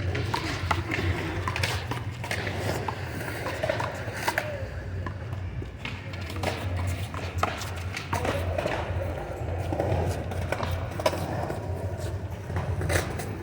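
Music and voices, with irregular sharp smacks throughout, typical of a one-wall handball being struck by hand and hitting the wall.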